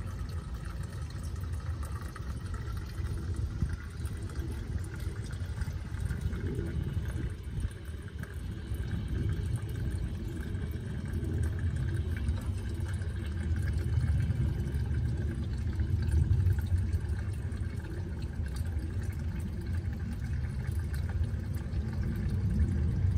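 Gasoline running out of the disconnected fuel line and old fuel filter in a steady pour, over a low steady rumble.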